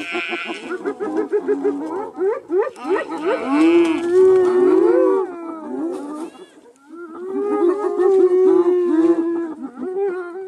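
Animal calls: several long, pitched calls that waver up and down and overlap one another, with two long held stretches in the middle and near the end.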